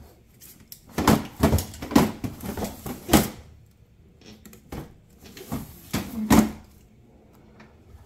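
The plastic sliding drawer in the bottom freezer of a Samsung four-door French-door refrigerator is slid back and forth on its tracks. It gives a run of plastic knocks and rattles, loudest in the first three seconds and again about six seconds in.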